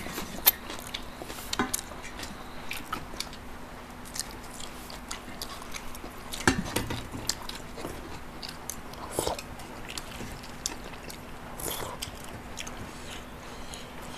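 Two people chewing and eating chicken curry and rice with their fingers: irregular wet lip smacks and mouth clicks, with a louder cluster about halfway through.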